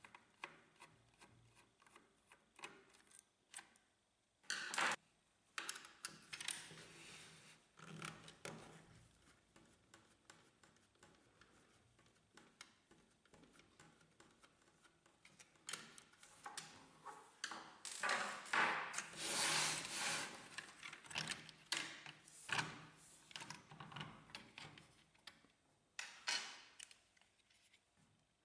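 Scattered clicks, taps and scraping of a sheet-metal gear plate and its plastic gears being worked loose and lifted off an HP Laser 100-series printer's steel frame. The handling is busiest in the second half.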